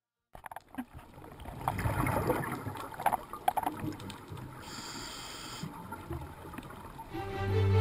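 Underwater gurgling and bubbling with scattered clicks, picked up by a dive camera underwater; a short high whine sounds a little before five seconds in, and music starts near the end.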